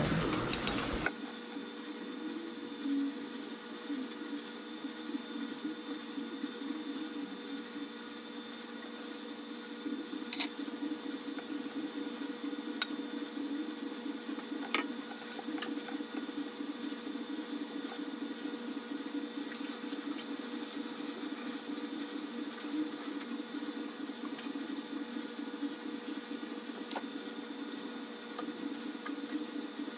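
Breaded chicken pieces shallow-frying in oil on low heat in a stainless steel skillet: a steady sizzling and bubbling, with a few sharp clicks of metal tongs against the pan partway through and a steady low hum underneath.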